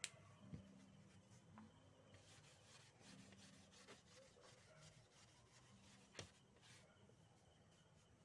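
Faint rubbing of a tissue wiping marker ink off a small whiteboard, with a few light clicks.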